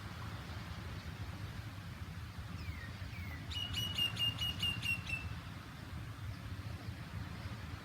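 A bird calls: two short falling notes, then a fast run of about eight sharp, high notes lasting under two seconds. Under it runs a steady low rumble.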